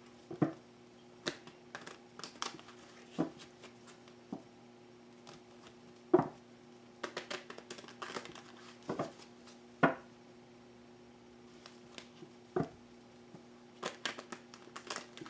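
A deck of tarot cards being shuffled by hand: irregular sharp clicks and short crackly flurries as the cards slide and snap against each other. A faint steady hum runs underneath.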